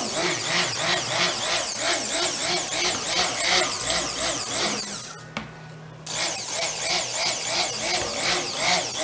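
Immersion stick blender running in cold-process soap batter, mixing lye solution into the oils. Its whir rises and falls about three times a second. It stops for about a second partway through, then starts again.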